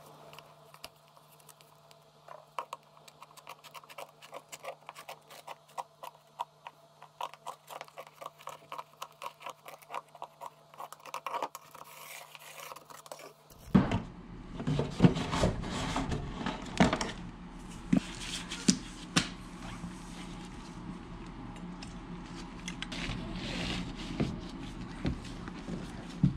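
A run of small clicks and scrapes, about three a second, as a hard piece is worked against a tile floor over a faint steady hum. Partway through the hum stops and louder knocks and plastic clatter follow, from a plastic tool case being handled and an oscillating multi-tool being taken up.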